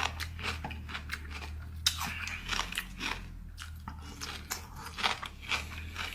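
Close-miked biting and chewing of a raw chili pepper: a run of irregular crisp crunches, over a low steady hum.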